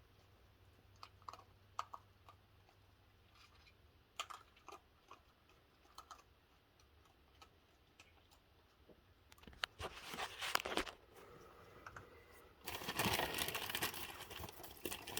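Crinkling and crunching while cookies are handled and eaten. At first there are only scattered light clicks. From about ten seconds in come bouts of crinkling and crunching, and near the end a denser, louder stretch.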